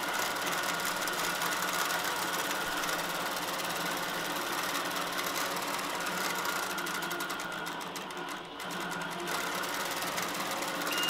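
Innova longarm quilting machine stitching steadily on its own under computer guidance, a fast, even run of needle strokes. The sound dips briefly about eight and a half seconds in.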